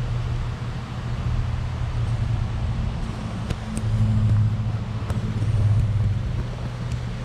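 A steady low machine hum that swells and eases a little, with a few faint ticks over it.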